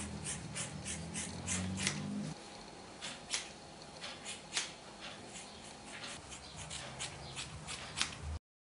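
Sparse, irregular sharp clicks, a few each second, over a faint steady hiss, with a low held tone that stops about two seconds in.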